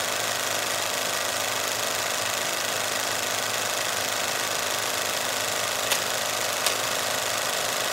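Cinema film projector running with a steady mechanical whir, with two short sharp clicks about six and seven seconds in.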